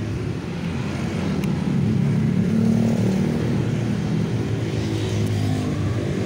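Motor-vehicle engine running nearby in road traffic, a steady low hum that swells about two seconds in and stays level.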